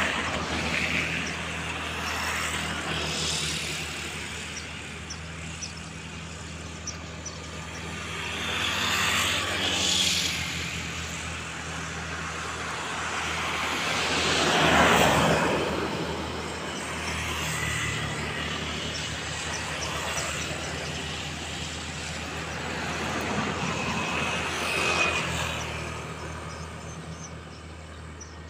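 Road traffic crossing a bridge: vehicles pass one after another, each a rush of noise that swells and fades, the loudest about halfway through, over a steady low hum.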